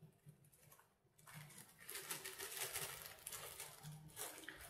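Crinkling and rustling of a small plastic bag of ground paprika being handled, starting about a second in and running as a dense crackle.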